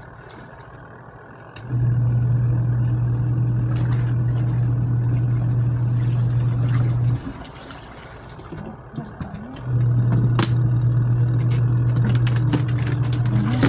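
Costway twin-tub washing machine's motor humming, running for about five seconds, stopping for about two and a half, then starting up again, with scattered light clicks and knocks over it.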